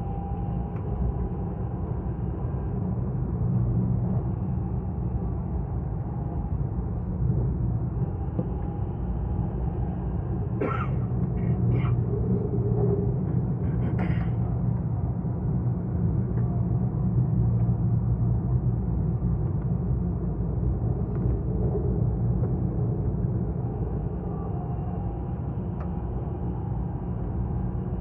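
Dubai Metro train running along elevated track, heard from inside the carriage as a steady low rumble. A few short sharp sounds come in the middle.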